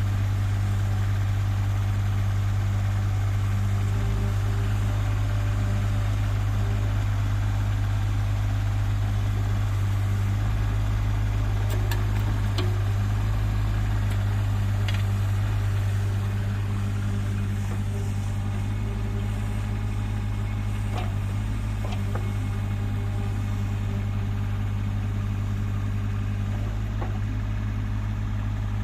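JCB 8018 mini excavator's diesel engine running steadily while the boom and upper body are worked, with a few faint clicks; it gets a little quieter about halfway through.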